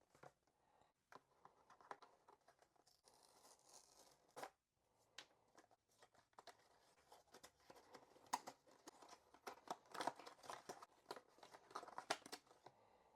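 A toothbrush box and its packaging being opened by hand: faint scattered clicks, taps and rustles of cardboard and plastic, busier in the second half.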